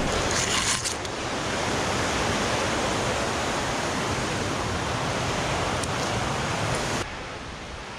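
Steady rush of a fast-flowing river and waterfall running high after a hurricane. The sound drops suddenly to a lower level about seven seconds in.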